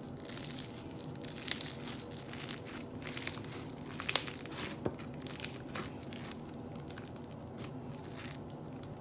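Crunchy slime being squished and stretched by hand: irregular small crackles, crinkles and sticky tearing pops, with a sharper crackle about four seconds in.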